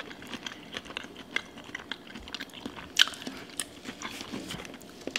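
Close-miked chewing of seafood-boil food: a run of small, wet mouth clicks, one louder about three seconds in, with fingers picking through sauce-covered food in the bowl.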